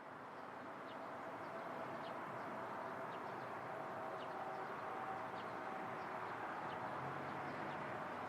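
Quiet outdoor ambience: a low, steady wash of background noise with faint, short bird chirps repeating about once or twice a second.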